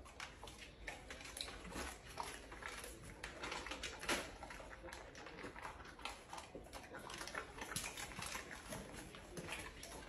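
Faint, irregular rustling and light clicks from items being moved about in a pantry, with dogs shifting around on a hard floor close by.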